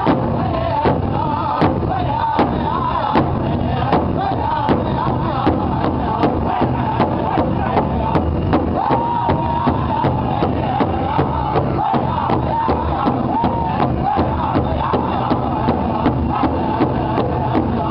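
Powwow drum group singing in high, wavering voices while several drummers strike a large hide-covered drum together in a steady beat. The beat grows quicker after about six seconds.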